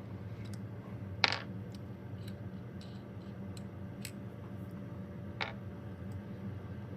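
A few light ticks and clicks, two of them sharper, over a steady low hum.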